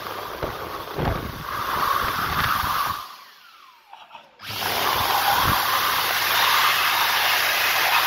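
Dyson hand dryer blowing a strong jet of air, with low flutters in the first seconds. About three seconds in it cuts out and its motor winds down with a falling whine. About a second later it starts again abruptly and blows steadily.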